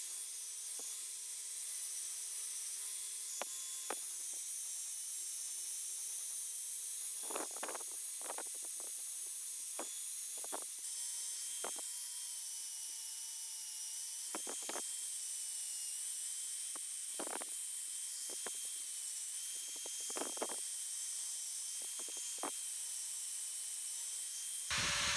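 Angle grinder with an abrasive disc grinding rust off the steel arms of an old scissor car jack: a steady high motor whine under a harsh hiss, broken by short scrapes as the disc bites the metal. Just before the end a louder, different noise cuts in.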